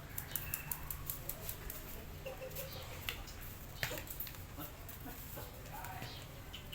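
Cats eating, a fast run of small crunching clicks through the first two seconds, then scattered clicks, with a few faint short animal calls over a steady low hum.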